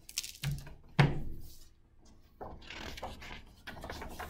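A large hardcover picture book being handled: a sharp knock about a second in as it comes down on the wooden table, then paper rustling as a page is turned.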